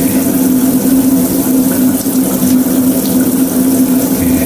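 Water running steadily from a tap, with a steady low hum under it.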